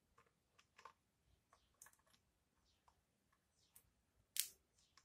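Faint clicks and small taps from crocodile-clip test leads and wires being handled, with one sharper click about four seconds in.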